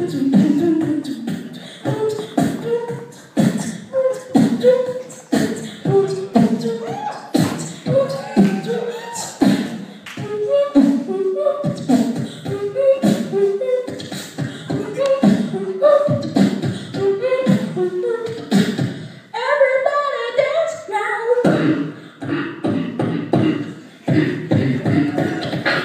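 Human beatboxing into a handheld microphone, amplified: a steady beat of vocal kick and snare sounds with hummed bass and melody notes woven between them. About twenty seconds in, the beat gives way briefly to a higher, wavering vocal line before the rhythm comes back.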